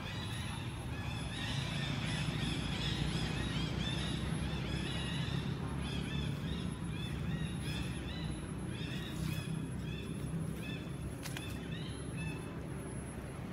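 A dense chorus of short, high-pitched chirping animal calls, several a second and overlapping, over a low steady hum.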